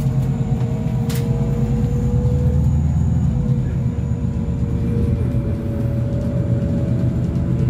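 Scania N280UB city bus's CNG engine running under way, heard from inside the cabin: a steady low hum with a thin whine that slowly falls and then rises again. A single click about a second in.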